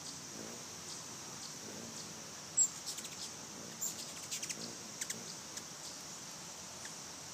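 Hummingbirds chasing each other around a feeder, giving sharp, high chip calls. The calls come in a quick run from about two and a half seconds in to about five seconds, over a steady high insect drone.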